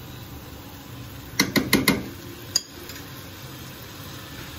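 Kitchen utensils clicking while ground black pepper is added to a wok of vegetables: four quick sharp taps about a second and a half in, then a single tap about a second later.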